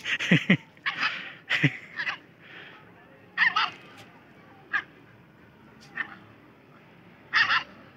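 Puppies yapping and barking in short, high bursts, roughly one every second, a few dropping quickly in pitch. The puppies are squaring up to a bigger young dog.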